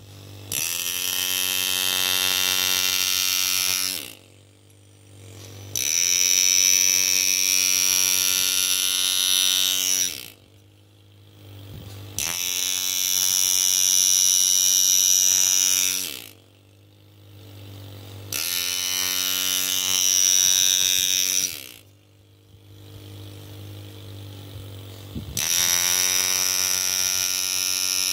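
Rebuilt foot-controlled air-driven hand engraver with a new piston and body tube, its handpiece buzzing in five bursts of a few seconds each as the graver cuts into a steel plate, with an air hiss on top. Between bursts a quieter hum carries on.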